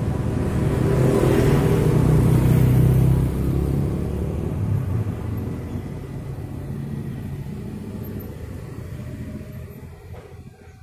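Road traffic passing close by: motorcycles and a car go past, their engine noise swelling about two seconds in and then slowly fading away.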